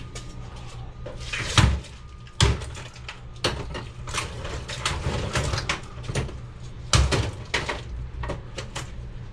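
Irregular knocks and clunks of a stubborn part being worked and forced loose from a piece of scrap by hand, with the heaviest knocks about one and a half, two and a half and seven seconds in.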